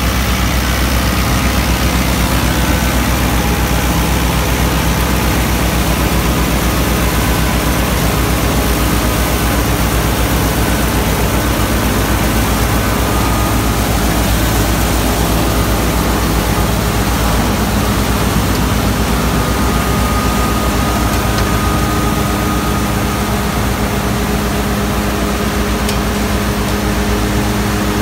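New Holland Dabung 85 tractor's 85 hp four-cylinder diesel engine running steadily under load as it drives a wheat straw chopper through the PTO shaft. The chopper's steady rushing noise runs over the engine.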